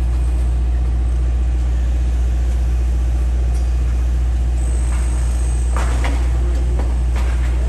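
Heavy construction machinery engine running steadily with a deep low hum. A few sharp knocks come about six to seven seconds in.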